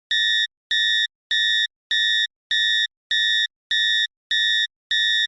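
Cockpit warning alarm beeping: a high, steady electronic tone repeating evenly, about one and a half beeps a second, with short silent gaps between.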